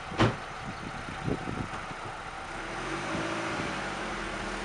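An Audi A4's car door slamming shut about a quarter second in, then the car's engine pulling away, its note swelling from about halfway through.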